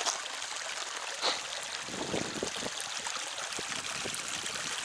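Shallow creek water running and trickling over rocks in a steady rush, with a couple of short knocks, one right at the start and one about a second in.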